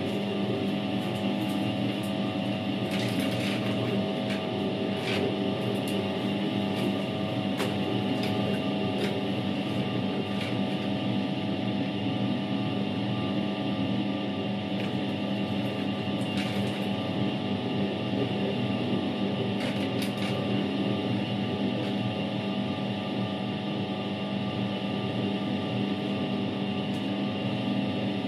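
Światowit M4 impeller washing machine washing a load, its Eda SED-110-4 capacitor-run motor running with a steady hum under the churning of water and laundry in the tub. A few short clicks come at scattered moments.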